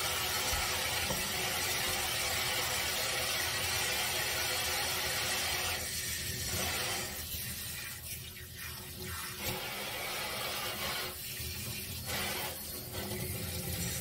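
Tap water running from a pull-out sink sprayer into a stainless steel sink as a small dog is rinsed. The flow is steady, then drops away briefly a few times in the second half.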